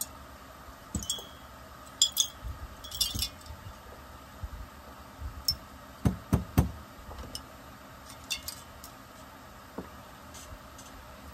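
Metal chainsaw engine parts and hand tools clinking and tapping on a workbench during a teardown: sharp ringing clinks in the first few seconds, then three louder dull knocks about six seconds in, and a few lighter taps after.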